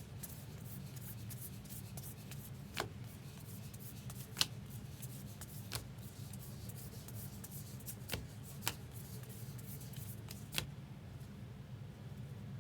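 Trading cards handled and flipped through by hand, with a soft rustle and a few short, sharp clicks, over a steady low hum.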